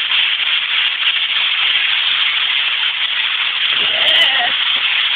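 Steady, loud, high-pitched hiss, with a brief faint voice sound a little under four seconds in.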